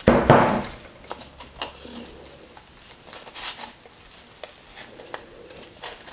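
Handling noises from working on a sandpaper belt and its tape: a louder rustle just after the start, then scattered small clicks and taps.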